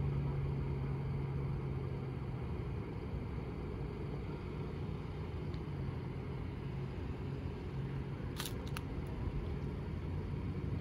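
Road traffic noise with a steady low vehicle engine hum that weakens after about two and a half seconds. A few sharp clicks come near the end.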